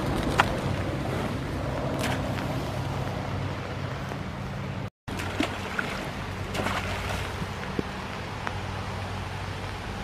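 A steady low mechanical hum, like a motor running, over a haze of shoreline noise, with a few faint clicks; the sound drops out for a moment about halfway through.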